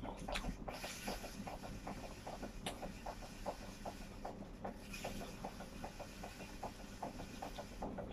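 Close-up mouth sounds of a person chewing food: wet smacks and clicks, about three or four a second.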